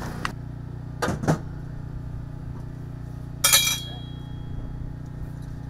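Construction-site work noise: a few knocks in the first second and a half, then one loud, ringing metallic clank about three and a half seconds in, over a steady low hum.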